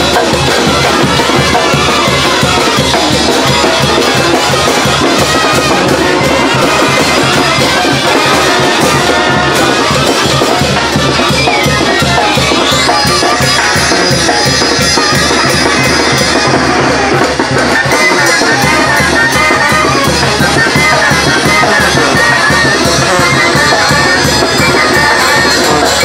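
Mexican brass band (banda) playing live and loud: brass over a steady drum beat.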